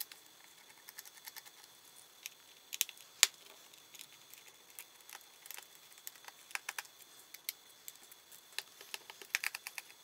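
Small precision screwdriver turning tiny screws out of a laptop's plastic bottom case: a scatter of light clicks and ticks, with one sharper click about three seconds in and a quick run of clicks near the end.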